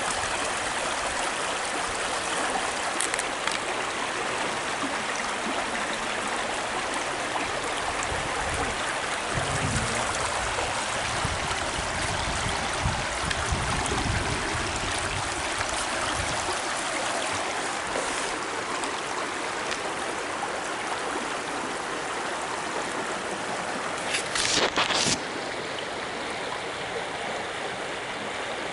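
A shallow river running over rocks: a steady rush of flowing water. Some low rumbling comes through in the middle, and a short burst of knocks near the end is the loudest moment.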